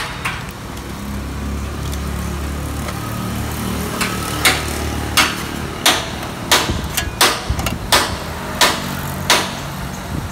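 Metal spatula knocking against a steel frying pan, about eight sharp strikes, roughly one every 0.7 seconds, starting about four seconds in. A low rumble underlies the first few seconds.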